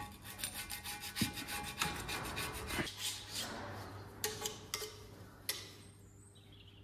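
Old gasket being scraped off the tractor engine's metal sump: rapid scraping strokes for about three seconds, then a few separate sharp clicks.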